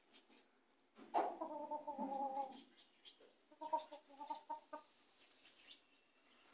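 Chickens clucking: one drawn-out call starting about a second in, then a quick string of short clucks.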